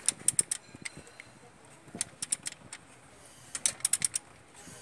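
Ratchet wrench clicking in three short runs of rapid metallic ticks while the Toyota 2C diesel engine's crankshaft is turned over by hand to line up the timing-belt marks.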